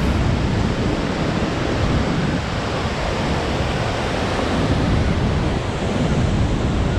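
Steady rush of falling water from the large multi-tiered Ban Gioc waterfall, heard up close: a dense, even noise with no breaks.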